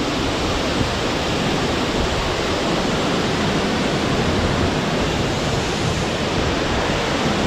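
Wahkeena Falls pouring onto rocks close by: a steady, even rush of falling water.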